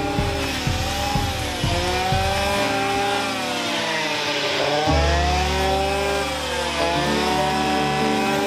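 Stihl brush cutter engine running at high revs while cutting brambles, its pitch dipping and climbing again about halfway through.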